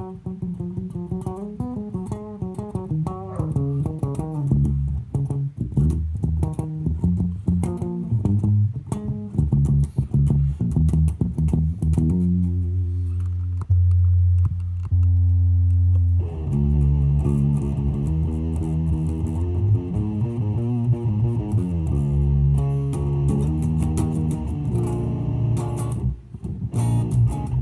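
Background music led by plucked bass guitar and guitar, with a steady run of bass notes.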